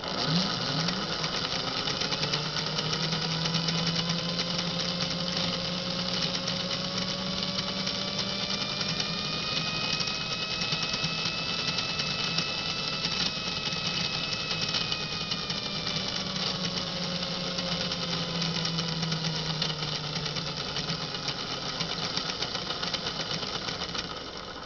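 Lionel postwar GG1 2332 motor truck running on a test stand: the open-frame motor whirs and whines as it drives the worm gear and free-spinning wheels, with a low steady hum underneath. The whine rises in pitch over the first few seconds as the motor speeds up, holds, then falls as it slows in the last third, and the sound drops away just before the end.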